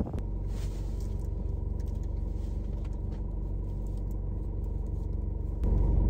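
Car engine and road drone heard from inside a moving car, a steady low hum. It gets louder near the end.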